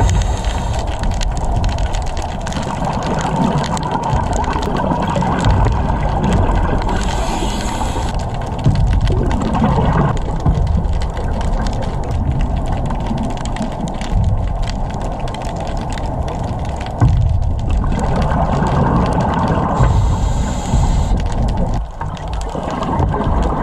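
Underwater sound of a scuba diver's breathing through the regulator: irregular rumbling, gurgling swells of exhaled bubbles over steady water noise.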